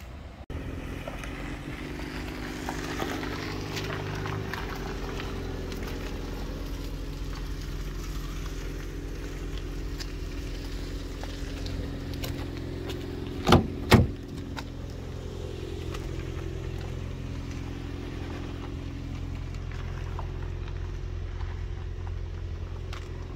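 Steady low hum of a car idling, with two loud thumps about half a second apart a little past halfway through.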